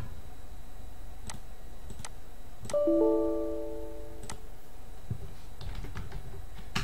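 A few sharp clicks, then about three seconds in the Windows error chime rings once and fades over about a second. It is the system's warning sound for a rename left without a file name.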